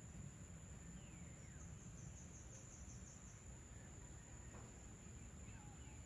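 Faint evening countryside ambience: a steady high-pitched insect drone of crickets over a low rumble, with a brief pulsing trill and a few faint, distant falling bird calls.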